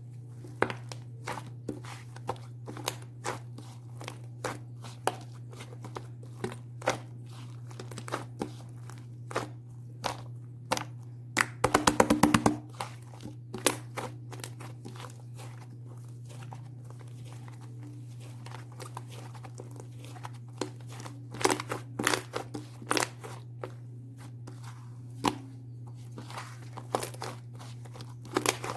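Scattered crisp clicks and crinkling, crunching handling noises over a steady low hum, with a quick rattle of many clicks about twelve seconds in.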